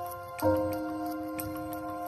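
Background music: a held chord is struck about half a second in, over a light ticking beat.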